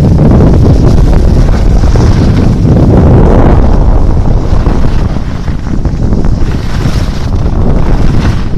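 Heavy wind buffeting the microphone of a camera carried downhill at speed on a ski slope: a loud, steady rumble that dips a little about five seconds in.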